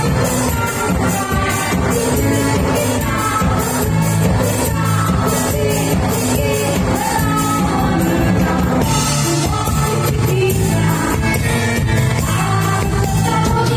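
Live band playing upbeat disco dance music through a PA, with a singer over a steady drum beat.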